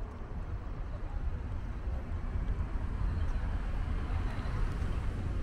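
Steady low rumble of road and wind noise from a moving car, growing a little louder over the first couple of seconds.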